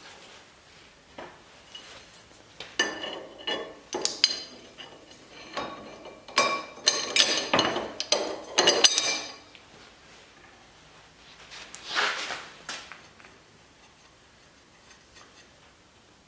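Metal hardware and hand tools clinking and clanking against each other in a run of irregular knocks, followed by a brief scrape.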